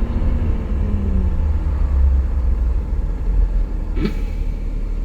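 Optare Solo single-deck bus running on the road, heard from inside: a steady low engine and road rumble, with the engine note falling over the first couple of seconds. About four seconds in there is a brief sharp noise with a short rising squeak.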